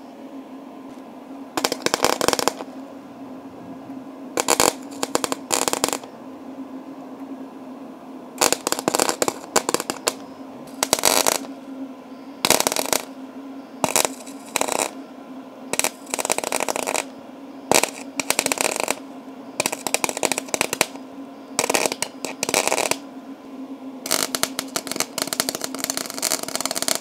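MIG welding in short stop-start bursts, a crackling sizzle each time the arc is struck, stitching a steel repair patch onto a car's rusted body. About a dozen bursts, the longest near the end, with a steady low hum between them.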